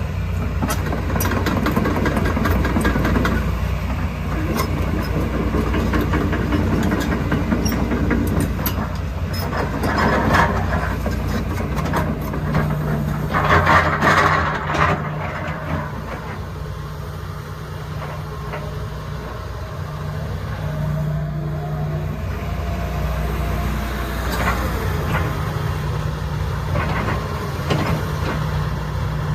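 Diesel engine of a Hitachi ZX225US LC-6 excavator running steadily. There are louder noisy spells about ten and fourteen seconds in, and scattered light clicks.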